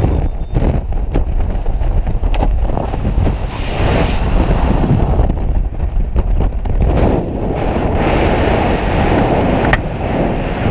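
Rushing wind buffeting a helmet camera's microphone under a just-opened ram-air parachute canopy: a loud, gusty, low rumble.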